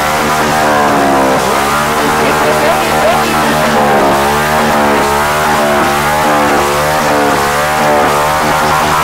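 Motorcycle engine revved hard over and over, its pitch rising and falling about once a second, during a burnout.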